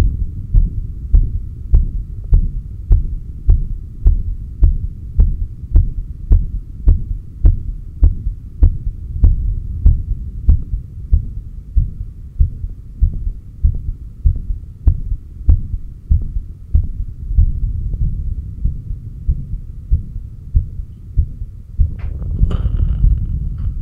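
Heartbeat heard through a stethoscope on the chest apex: a steady train of low thumps, nearly two a second, softening after about halfway. A faint steady hum sits underneath, and a short scratchy rustle comes near the end.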